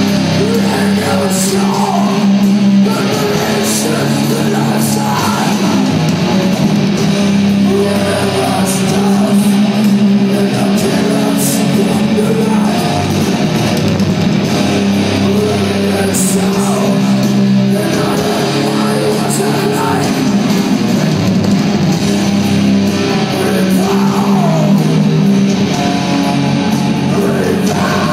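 Heavy metal band playing live at high volume: a distorted electric guitar with bass and drums churning steadily throughout, with some notes sliding in pitch.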